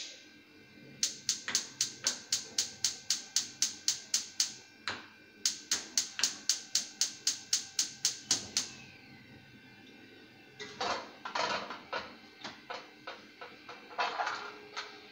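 Stove burner's spark igniter clicking rapidly, about four clicks a second, in two runs of roughly three seconds each while the burner is being lit. This is followed by a few seconds of irregular clattering and handling noise at the pot.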